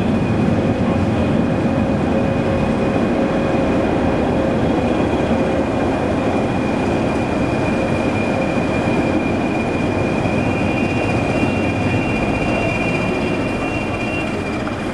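Class 20 diesel locomotive hauling a train slowly through a station: a steady engine and wheel rumble with a high, steady whine over it. A second, higher whine joins about ten seconds in.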